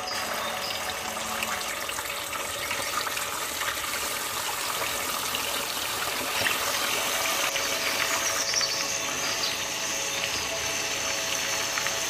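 Red snapper steaks frying in hot oil in a pan: a steady, dense sizzle with fine crackling spatter.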